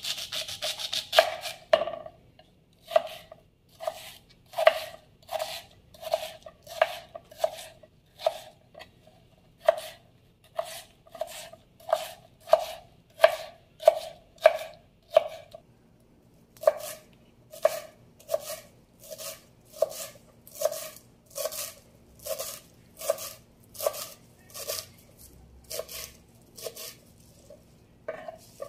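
Kitchen knife chopping an onion and then cilantro on a wooden cutting board: a quick run of cuts at first, then steady single strokes on the board, about one and a half a second, with a short pause about halfway.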